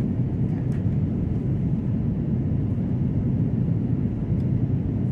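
Steady low rumble of an airliner heard from inside the cabin during the descent to landing: jet engine and airflow noise, even throughout.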